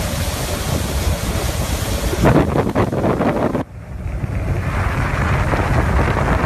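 Wind buffeting the microphone aboard a moving motorboat, over the steady noise of the boat and its churning wake. It drops out briefly about three and a half seconds in.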